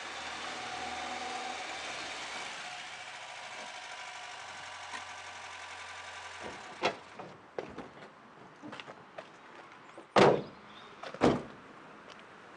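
A car engine running steadily, then switched off; a few clicks follow, then two heavy car-door thuds about a second apart near the end.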